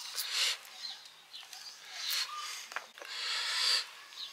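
Raw radish being cut into slivers against a hand-held knife blade: three rasping slicing strokes, the last one longer.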